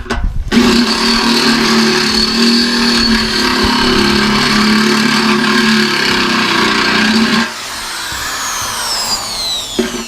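Electric drill running steadily with a thick bit, drilling out a rivet on a washing machine's drum support. About two-thirds through the trigger is let go and the drill winds down with a falling whine, then it starts again near the end.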